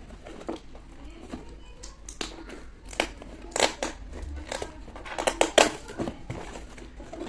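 A tightly taped shipping box being opened: packing tape and packaging ripping and crinkling in irregular sharp rustles, loudest about five seconds in.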